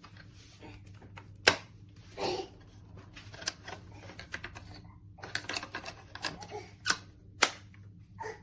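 A series of irregular sharp clicks and knocks, the loudest about a second and a half in and again near the end, over a faint low steady hum.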